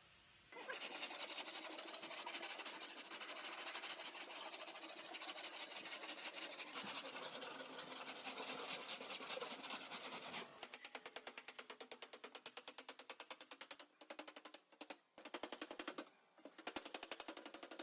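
Fast, even mechanical clatter, like a small power tool running, starting about half a second in. It turns lighter and more regular partway through, and in the last few seconds it stops and starts in short runs.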